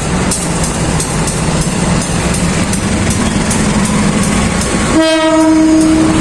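Diesel locomotive running with a steady low rumble, then about five seconds in a locomotive horn sounds one long steady blast lasting just over a second.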